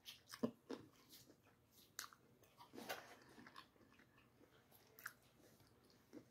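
Close-up eating sounds: a fried chicken wing being bitten and chewed, with short, scattered bites and wet mouth smacks about a second apart.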